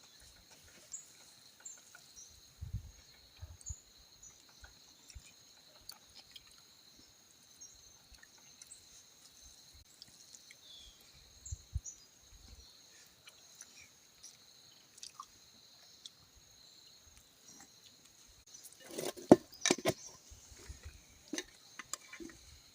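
Steady high-pitched chirring of crickets, with scattered light knocks and a short cluster of louder clatter a few seconds before the end.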